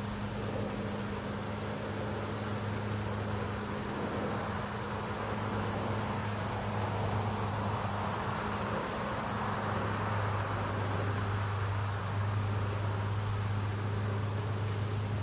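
Neighborhood car traffic: a broad wash of road noise that swells gently in the middle as a car goes by, over a steady low hum.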